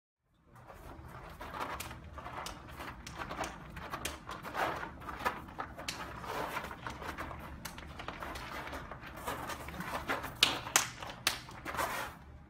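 Feet shuffling and crunching on gravel, with sharp slaps and clicks from hand and arm contact, as two people work a partner knife drill. Under it runs a steady low rumble. The sharpest clicks come about ten to eleven seconds in.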